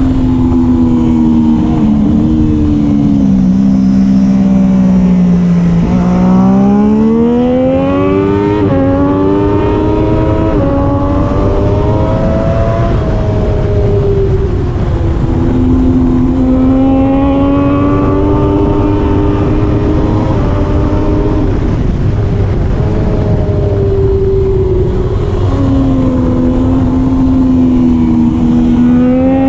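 Triumph Daytona 675R racing motorcycle's inline three-cylinder engine at race pace, with a steady rush of wind. The revs fall for about six seconds as it slows for a corner, then climb in steps through several quick upshifts, and the cycle of easing off and accelerating repeats twice more.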